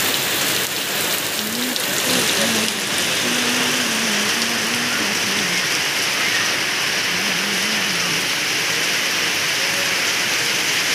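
Heavy rain pouring steadily onto a paved street and into puddles: a dense, even hiss.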